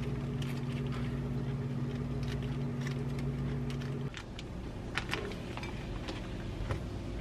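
A kitchen appliance's steady electric hum cuts off abruptly about four seconds in. Light taps and clicks of food and dishes being handled on the counter run throughout.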